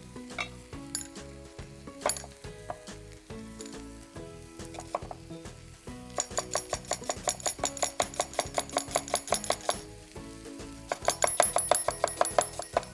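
Large knife rapidly chopping an onion on a wooden log chopping block, about eight quick strokes a second. There are two runs of strokes: one starting about six seconds in and lasting nearly four seconds, and another starting about eleven seconds in.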